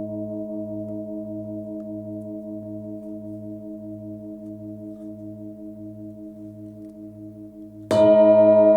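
A 26 cm hand-forged Nepalese singing bowl, tuned to about 107 Hz, rings on and slowly fades with a steady wobble of about one and a half pulses a second. Near the end it is struck again, and a loud fresh ring starts up.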